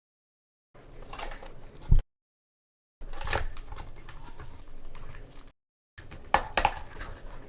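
Hands opening a sealed cardboard trading-card hobby box: scraping and crinkling packaging with sharp clicks, a low thump about two seconds in, and a pair of loud snaps near the end. The sound breaks off abruptly twice.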